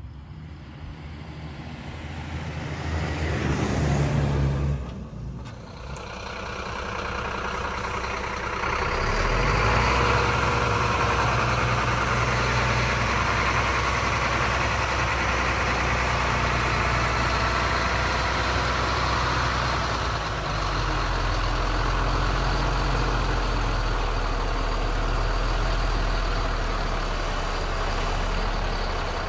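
Mercedes-Benz Zetros 4x4 truck's six-cylinder diesel engine pulling steadily under load as the truck climbs a steep test-track slope. It is preceded by a rising rush of noise over the first few seconds that cuts off about five seconds in.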